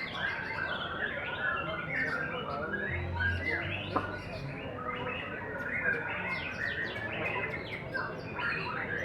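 Several white-rumped shamas (murai batu) singing over one another: a dense, unbroken tangle of quick whistles and chirps, with one sharp click about four seconds in.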